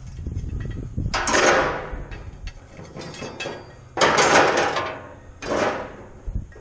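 Rusty scrap-iron pieces, an old pitchfork head and a potato-rake head, being laid on and dragged across a metal grill grate. They make three scraping clatters, about a second in, around two-thirds of the way through, and just after, with lighter clinks between.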